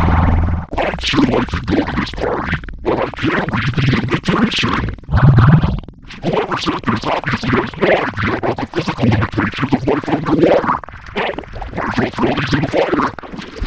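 Heavily effects-processed, distorted audio from an 'S Major' edit: choppy, stuttering, scratch-like glitching with a loud low burst about five seconds in.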